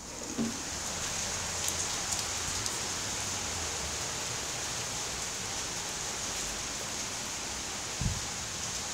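Steady rain falling during a thunderstorm, an even hiss of rain with a single dull thump about eight seconds in.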